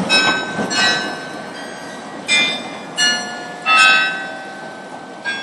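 Bicycle bells ringing: about six short dings at uneven intervals, each fading away, some at different pitches, over steady street traffic noise.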